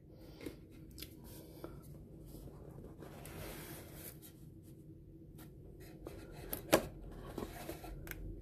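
Hands opening the two hinged doors of a stiff cardboard phone box and handling it: faint rubbing of card on card with a few light taps and clicks. The sharpest click comes a little past two-thirds of the way through.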